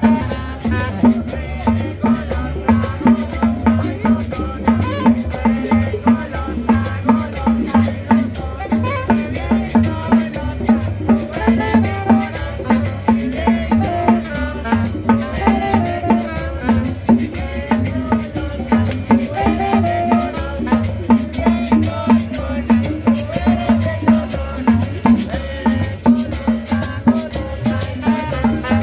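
Upbeat dance music with a steady beat and rattling percussion.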